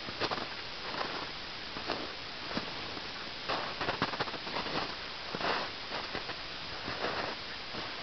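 Footsteps crunching through deep snow, an uneven step every half second to a second, over a steady hiss.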